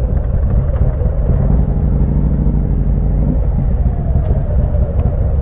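Harley-Davidson V-twin motorcycles idling close by, a steady low rumble. A steadier hum joins from about a second and a half in until just past three seconds.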